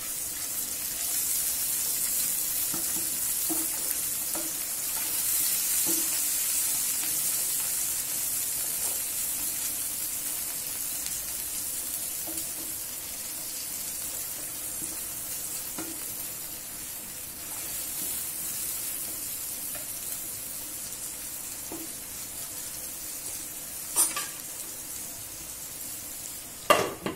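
Chopped onions sizzling in hot oil in a frying pan, stirred with a wooden spatula. Near the end come two sharp knocks.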